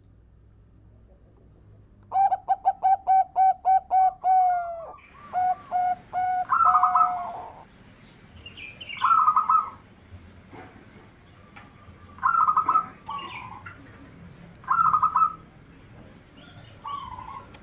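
Zebra dove (perkutut) cooing. About two seconds in comes a quick staccato run of about ten short coos, roughly four a second. It is followed by separate cooing phrases every two to three seconds.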